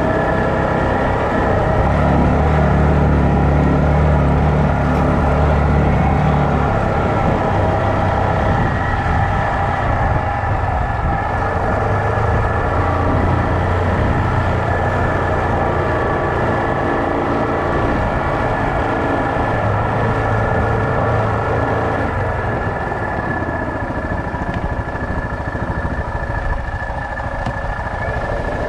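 Yamaha Kodiak 450 ATV's single-cylinder engine running steadily while riding, with a steady higher whine above the engine drone. The engine note is heavier and deeper for the first several seconds, then lighter.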